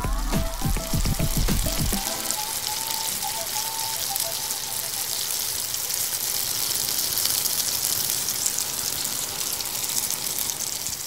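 Breaded onion rings frying in hot oil in a pan, a steady sizzle. Background music fades out over the first two seconds.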